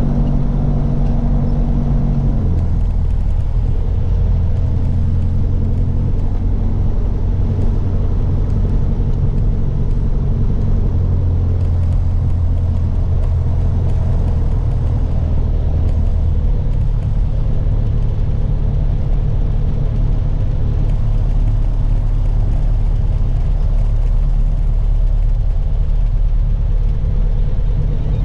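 Piper PA-28's piston engine and propeller running steadily; the engine note drops a little about two and a half seconds in.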